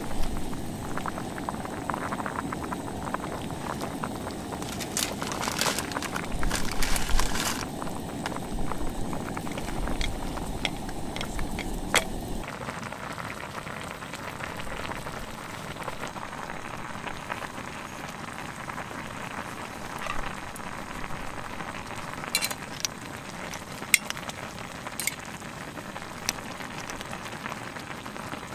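Clam-and-tomato broth boiling in an enamel tray over a camp stove: a steady bubbling hiss with a few sharp pops and clicks. For the first dozen seconds it is louder and lower, with some knocks.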